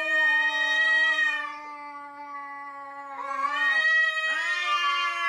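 A black cat and a black-and-white stray cat yowling at each other in a territorial standoff before a fight. The yowls are long, drawn-out and held at a steady pitch. One breaks off after nearly four seconds, and another starts up half a second later.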